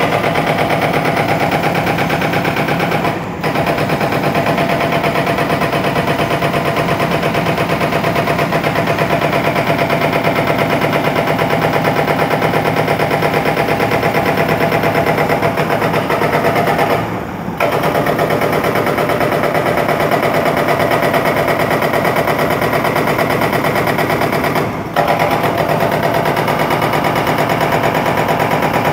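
Demolition jackhammer pounding rapidly and without let-up, stopping briefly three times: a few seconds in, about halfway through and near the end.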